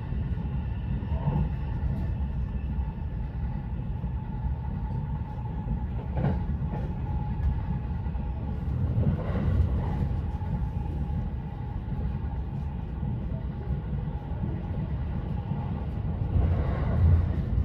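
Running noise heard inside the carriage of the Haruka limited express electric train at speed: a steady low rumble of wheels on rail with a faint held tone above it. A few brief louder swells of rail noise come about six seconds in, near ten seconds, and near the end.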